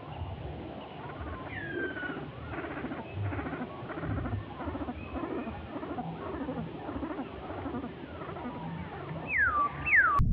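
Wild birds calling over a dense background chatter of animal calls, with two louder falling whistles near the end.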